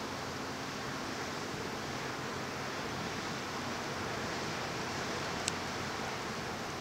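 Steady rushing outdoor noise, like wind or moving water, with a faint low hum beneath it and a single sharp click about five and a half seconds in.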